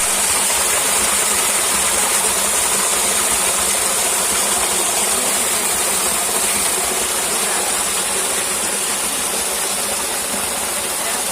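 Steady rain falling, an even hiss, with a continuous high-pitched tone held over it.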